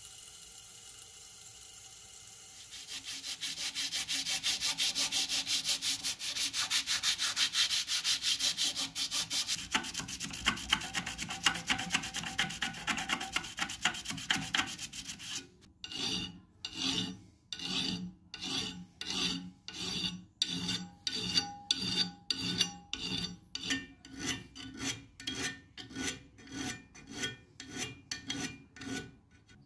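Sandpaper rubbed by hand on the steel jaw of an old pipe wrench: a fast, continuous scrubbing at first, then from about halfway slower, separate back-and-forth strokes, about two a second. In the first couple of seconds only a faint steady whir of a small rotary tool is heard.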